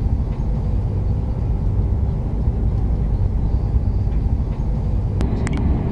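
Steady low rumble of the Transwa Prospector's diesel railcars running, with a few sharp clicks near the end.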